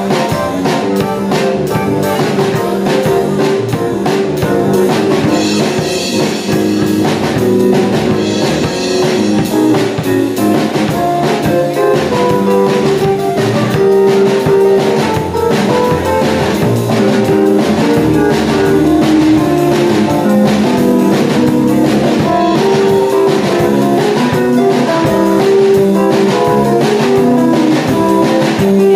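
Live instrumental jazz-fusion band: an electric keyboard playing piano lines over a drum kit keeping a steady beat.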